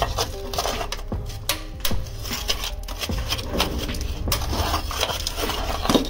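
Hand tools scraping and crunching with many irregular sharp knocks and clicks.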